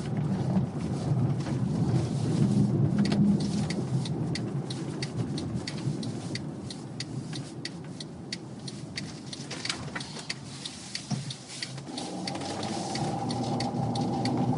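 Car cabin noise while driving on a narrow country road: a steady low tyre and road rumble with scattered sharp ticks and clicks. About twelve seconds in, a steady engine hum comes in and grows louder as the car picks up speed.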